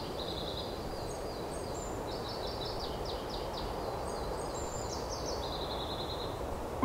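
Birds chirping in quick runs of short, high notes, over a steady low rush of outdoor background noise.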